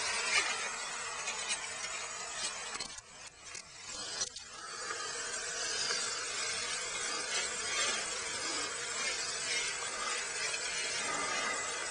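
A mass of captured honeybees buzzing in a screened box as they are let down into a hive: a steady, hissing hum that dips briefly with a few knocks about three to four seconds in.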